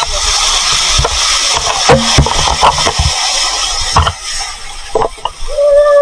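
Waterfall rushing steadily, with wind buffeting the microphone in low rumbles and a few knocks. A brief held pitched tone sounds near the end.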